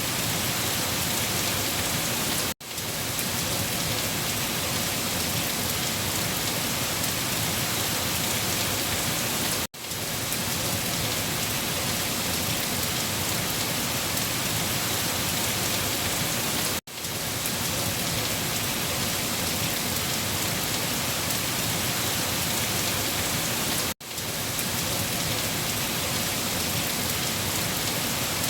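Heavy rain falling on leaves: a steady, dense hiss of many drops. It cuts out for an instant four times, about every seven seconds, and swells straight back each time.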